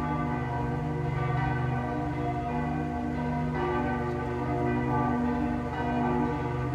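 Several church bells ringing together, their long-sustaining tones overlapping, with new strikes coming in every second or so.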